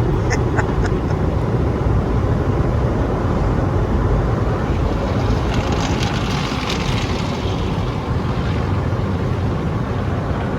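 Automatic car wash heard from inside the car: a steady rush and rumble of water spray and machinery on the car body, with a brighter hiss swelling about halfway through.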